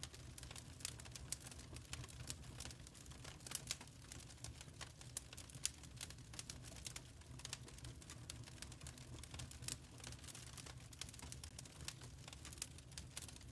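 Wood fire in a fireplace crackling: dense, irregular small pops and snaps over a low, steady rumble of the burning fire.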